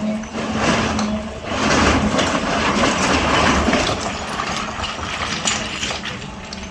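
Excavator's diesel engine running, with a steady hum and noisy surges of load that rise and fall during the first few seconds, then settling steadier and a little quieter near the end.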